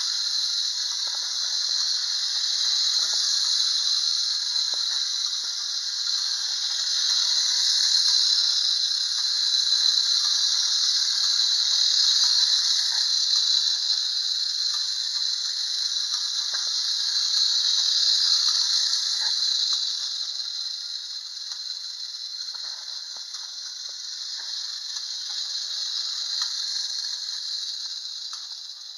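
The clockwork spring motor of a Schylling tin wind-up Lionel hand car running as it rolls around a Marx two-rail tinplate track: a steady high whirring of its gears with small scattered clicks. It eases off somewhat in the last third and stops near the end.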